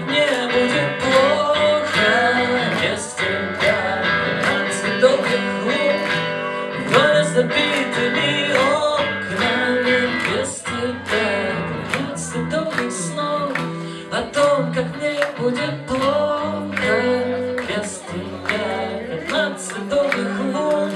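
Rock band playing live: electric guitar over steady drum beats, with a man singing into a microphone.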